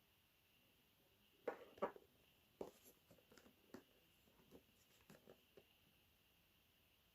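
Faint clicks and taps of a mobile phone being handled, about ten in all, the two loudest close together about a second and a half in.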